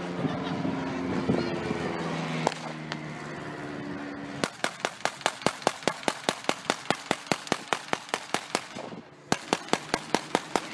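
Two bursts of rapid gunfire, evenly spaced shots at about five a second: the first lasts about four seconds, and after a short break the second runs over a second. Before the firing there are a few seconds of voices and background noise.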